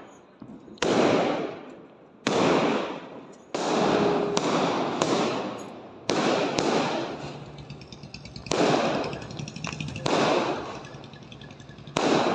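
Aerial fireworks bursting: a string of about ten loud bangs at uneven intervals, each trailing off over a second or so, with sharper crackles and pops in between.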